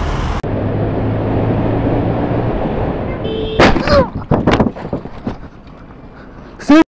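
Motorcycle riding noise with engine and wind, then about three and a half seconds in a motorcycle crashes into a car: a loud impact followed by several clattering knocks as the bike goes down. A short loud burst comes just before the end.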